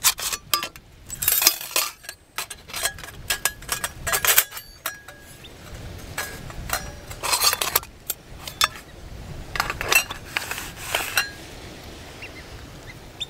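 Folding metal bushbox stove being unfolded and assembled: thin metal panels clinking and clattering as they are slotted together, in several clusters, tailing off near the end.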